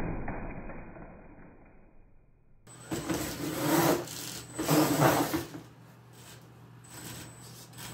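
Small RC monster truck's brushless electric motor and drivetrain: a knock at the start as the truck hits the cardboard box, then two short hard bursts of the motor about three and five seconds in, with a faint high whine.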